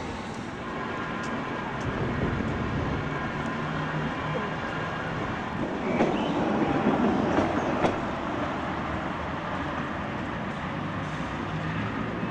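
Electric rail vehicle running past close by along a platform, wheels clattering on the rails. It is loudest about six to eight seconds in, with a sharp click near eight seconds.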